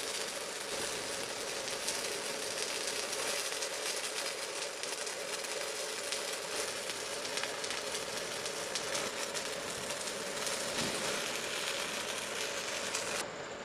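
Stick-welding (MMA) arc from a Kazaki MMA 200KZ inverter welder at 120 amps with a 2.6 mm electrode: steady crackling and sizzling over a steady hum, cutting off near the end.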